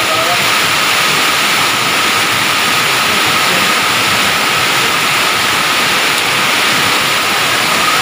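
Heavy downpour of rain mixed with hail, driven by strong wind: a loud, steady rush of noise.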